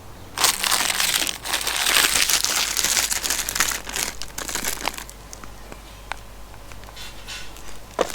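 Plastic toy packaging crinkling and rustling as it is handled and torn open. It starts about half a second in and is loudest for the first few seconds, then drops to lighter scattered crackles.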